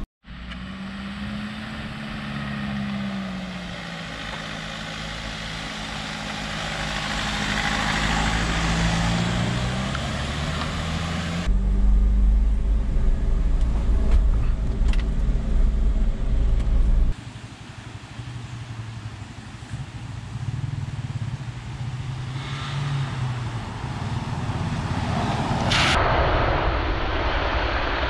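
Force Gurkha Extreme's diesel engine driving on a rough forest track, its note rising and falling in pitch. In the middle it is heard from inside the cabin as a louder, deeper rumble. Near the end comes a rush of splashing water as the SUV drives through a stream.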